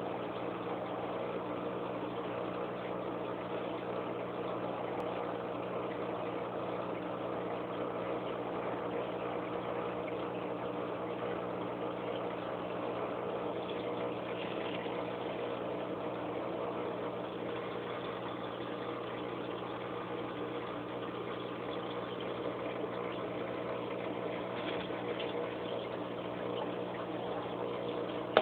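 Aquarium pump humming steadily, with an even hiss of moving water over it.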